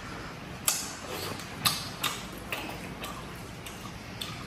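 Chopsticks clicking against porcelain bowls: about half a dozen short, sharp clicks at irregular intervals as food is picked from a small rice bowl and noodles are lifted from a large ceramic tureen.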